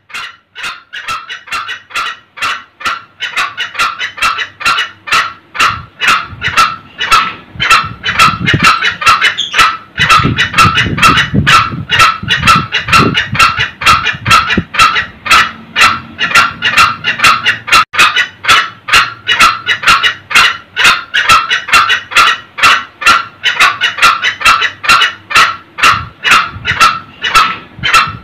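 Green junglefowl, male and female, kekking: a long run of short, sharp 'kek' calls, about three a second, growing louder over the first few seconds and then holding steady.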